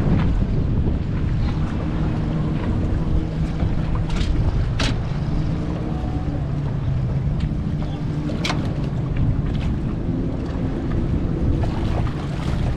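Outboard motor idling with a steady low hum, under wind on the microphone. A few sharp clicks stand out in the middle.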